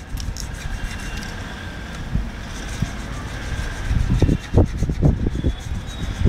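Wind buffeting the microphone in irregular gusts, heard as low thumps and a rumble, thickest about four to five and a half seconds in.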